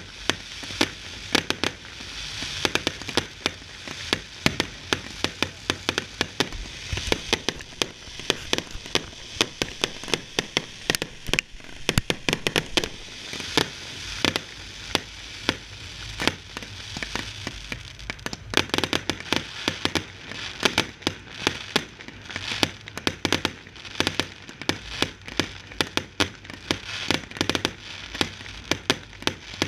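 Fireworks display: a dense, unbroken run of bangs from bursting aerial shells and crackling stars, several reports a second, some much louder than the rest.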